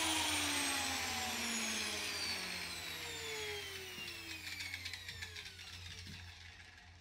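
Angle grinder spinning down after being switched off from cutting steel plate: its whine falls steadily in pitch and fades away over about six seconds, with a few faint clicks near the end.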